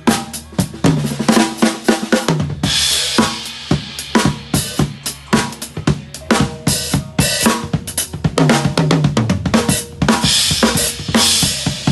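A drum kit being played during a sound check: fast, busy strokes on snare and bass drum, with fills and cymbal crashes twice, first at about a third of the way in and again near the end.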